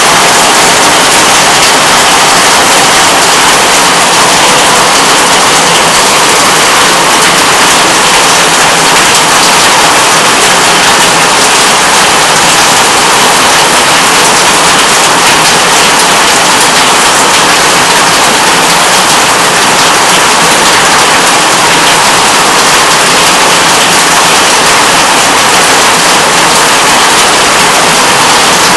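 Heavy thunderstorm downpour: a loud, steady hiss of rain that does not let up.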